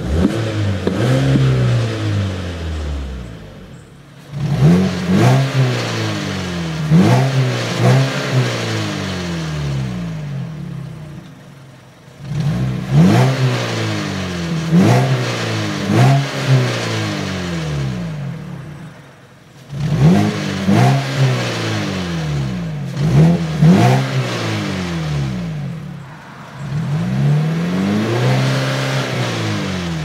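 2014 Mazda3 i's 2.0-litre Skyactiv-G four-cylinder revved repeatedly at standstill, its revs capped at 4,000 rpm by the stationary rev limiter. The revving comes in clusters of quick blips, each rising and falling in pitch, with the engine dropping back to idle between clusters about every seven or eight seconds.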